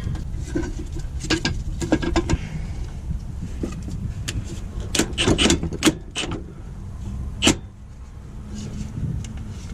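Scattered sharp clicks and knocks of work on a truck's gearbox mounting, bunched in a quick cluster about halfway through with one loud knock after, over a steady low rumble.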